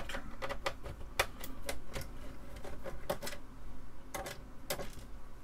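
Irregular sharp clicks and clacks from an Amiga 2000 keyboard being handled, its keys and plastic case knocking.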